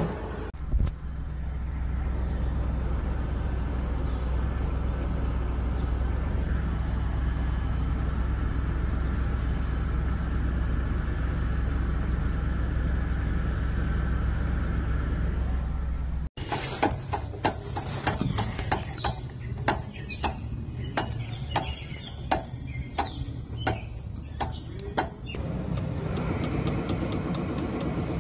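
Vehicle mechanical sounds in three stretches. First comes a steady low running drone. After an abrupt cut, irregular sharp clicks and knocks go on for about nine seconds. Near the end an engine runs steadily.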